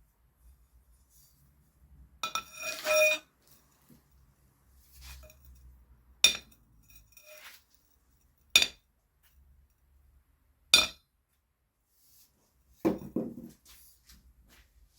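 Steel on steel in a hand forge: a short ringing clatter, then three sharp single metallic strikes about two seconds apart, and a duller cluster of knocks near the end.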